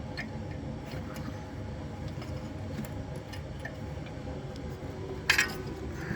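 Small clicks and taps of hand work on a brake pad wear sensor and its clip, with one sharp metallic clink about five seconds in, over a steady low hum.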